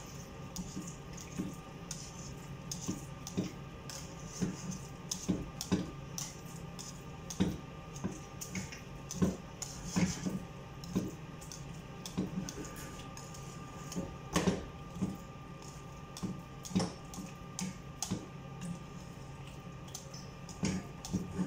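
Wire whisk stirring a thick flour-and-butter asida mixture in a pan, knocking and scraping against the pan in irregular clicks about once or twice a second, over a steady low hum.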